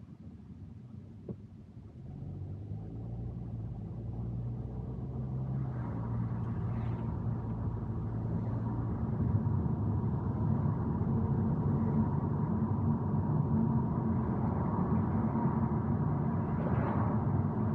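Car engine and road noise heard from inside the cabin. It is quiet while the car waits at the intersection, then builds steadily from about two seconds in as the car pulls away and gathers speed, and runs steady once it is cruising. A single brief tick comes about a second in.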